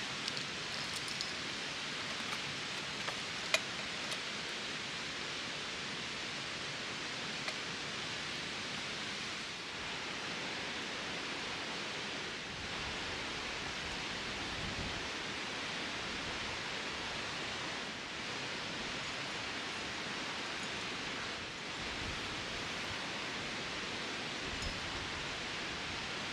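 Steady rushing noise, with a few faint clicks or snaps in the first four seconds.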